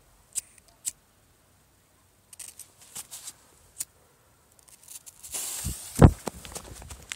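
A lighter clicking several times at a firecracker's fuse. About five seconds in, the fuse catches and hisses. Just after that comes a loud heavy thump, with more knocks from handling.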